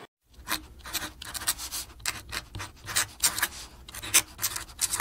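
A fingertip rubbing and sliding across the paper page of a textbook: an irregular run of short, scratchy rubs, several a second.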